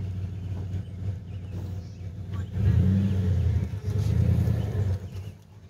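Truck engine running, then revving harder for about two and a half seconds from a little over two seconds in, before easing back and fading near the end.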